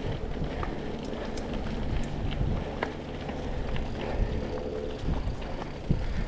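Mountain bike rolling along a dirt trail: steady tyre and rolling noise with scattered clicks and rattles from the bike.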